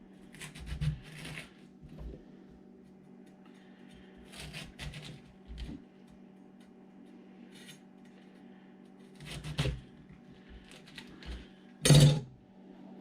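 Knife cutting and prying the tough core out of a head of cabbage: scattered crunches and knocks, the loudest about twelve seconds in, over a steady low hum.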